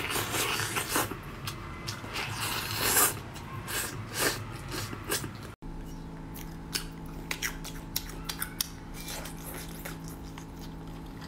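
Close-miked eating: teeth tearing and biting meat off a large braised pork bone in dense bursts. After a sudden cut, soft sticky chewing of gelatinous braised meat, with many short wet smacking clicks over a steady low hum.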